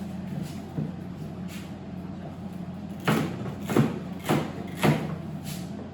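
Knife chopping celery on a cutting board: a couple of light knocks, then from about halfway through five firm, evenly spaced chops a little over half a second apart. A steady low hum runs underneath.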